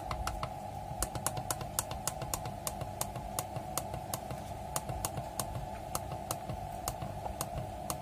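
Push buttons on a Dixell digital refrigeration controller clicking in a steady run, about two to three presses a second, as its parameter menu is stepped through. A steady hum sits underneath.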